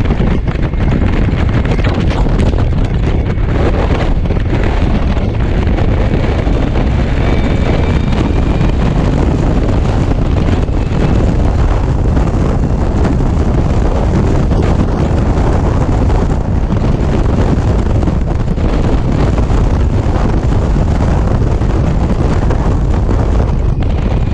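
Steady wind rush buffeting the microphone, mixed with tyre and road noise, from riding a BMW C-Evolution electric scooter at highway speed. The electric drive adds no engine sound of its own, so the wind dominates.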